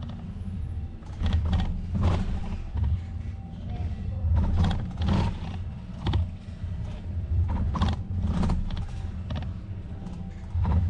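Wind rumbling on the microphone of a camera on a moving bicycle, with irregular rattles and creaks from the ride.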